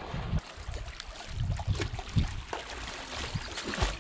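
Sea water lapping and trickling against a concrete seawall, with irregular low rumbles of wind on the microphone.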